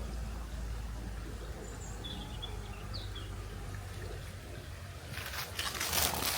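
Riverside ambience: a steady low rumble with a few faint bird chirps. From about five seconds in, a run of louder rustling noises takes over.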